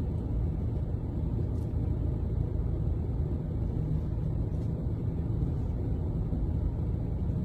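A steady low rumble that holds an even level.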